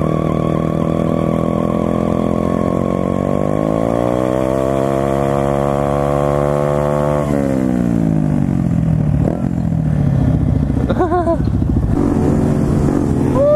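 SSR pit bike's small single-cylinder four-stroke engine under way: the pitch rises steadily for about four seconds as it revs up, then falls away over about two seconds as the throttle comes off.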